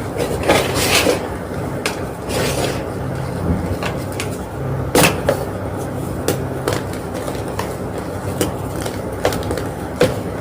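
A homemade gym chalk block being crunched, with irregular sharp crunches and crackles, the loudest about halfway through, over a steady low hum.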